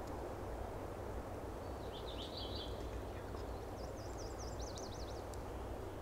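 Quiet forest background with a steady low hum, over which a small songbird sings two short high phrases: a brief chatter about two seconds in, then a rapid up-and-down warble just past the middle.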